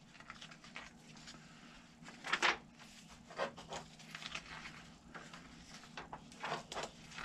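Paper instruction sheets being handled and their pages turned: a few short soft rustles, the loudest about two and a half seconds in, over a faint low steady hum.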